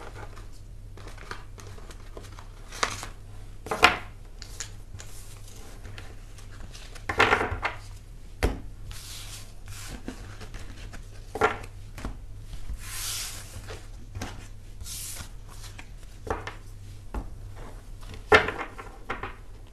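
Occasional brief clicks, taps and rustles a few seconds apart, with two short hisses, over a steady low hum.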